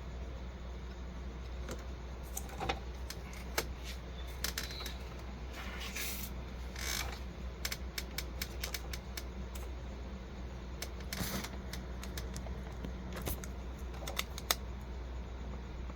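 Scattered small clicks and taps, with a few brief rustles, from hands working plastic printer parts and an ink syringe, over a steady low hum.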